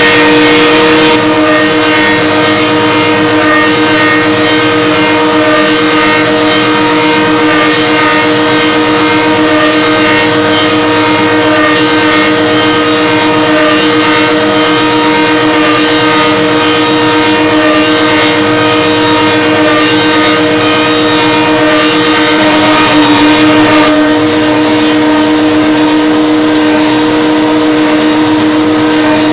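Bacci multi-spindle copy lathe running, turning and sanding hickory wheel spokes: a loud, steady machine whine over the hiss of wood being cut and sanded.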